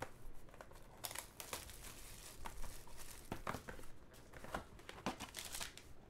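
Plastic shrink wrap crinkling and tearing as a trading-card box is unwrapped and opened, with soft scattered rustles and a few light clicks from handling the cardboard box.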